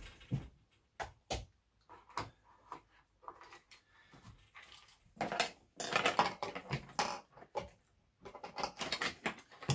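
Hands handling a hard plastic rifle case: scattered sharp clicks and knocks on the plastic, a stretch of rustling and scraping from about five to eight seconds in, and more clicks as the hands work at its front catches near the end.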